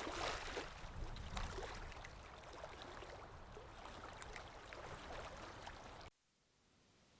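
A sound effect of dense crackling noise, like rushing water, that cuts off abruptly about six seconds in.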